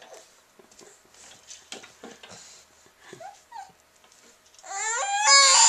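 A young child making a loud mock tantrum wail, a high voice that climbs in pitch. It starts near the end after a few seconds of only faint clicks and small noises. The child is playing, not upset.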